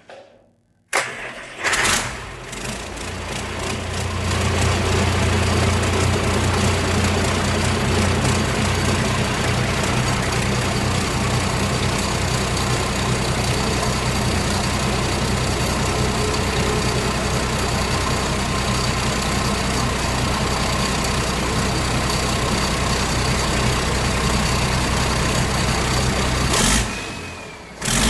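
Rebuilt diesel engine cranking and firing up about a second in, then running steadily and loudly on a cold first start with its turbocharger disconnected. The sound dips briefly near the end.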